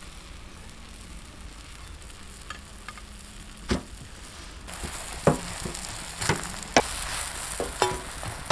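Parotta frying on a hot iron tawa over a wood fire: a soft sizzle that grows louder about halfway through as oil is poured onto the griddle, with several sharp taps of a metal spatula against the pan.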